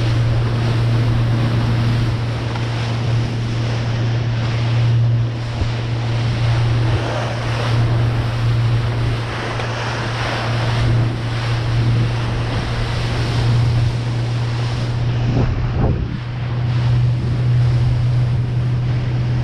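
Boat engine running steadily under way, a constant low hum, with water rushing past the hull and wind buffeting the microphone.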